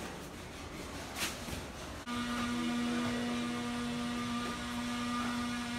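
Quiet rustling, then about two seconds in a steady hum starts abruptly: a held low note with several fainter higher tones over it.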